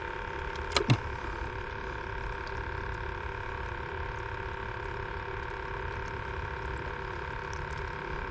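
A steady mechanical hum holding several even tones, with one brief sharp sweep about a second in.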